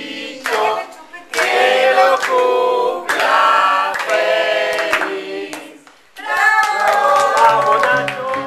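A family group singing together with hand claps for a birthday. The singing dips briefly about six seconds in, then goes on with sliding notes.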